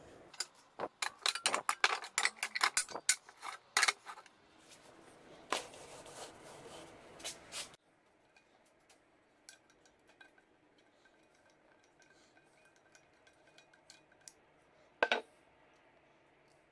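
Metal frying pans clattering and clinking against each other and the wooden table, in a quick run of knocks that thins out after about four seconds. After a sudden drop, faint clicks and scrapes follow as a screwdriver works the handle fastening off a frying pan, with one sharp click near the end.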